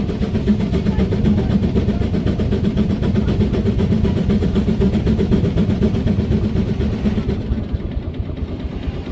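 Steam-powered sawmill at work: a circular saw cutting through a log, driven by a Case 65 hp steam traction engine under load. It is a loud, steady hum with a rapid, even pulse, and the cutting tone eases off about seven seconds in.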